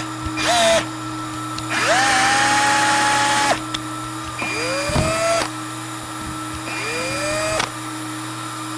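Cordless drill driving a screw into a plastic kayak hull to strip it out, in four pulls of the trigger, each spinning up with a rising whine, the longest about two seconds. A plastic welder hums steadily underneath as it preheats.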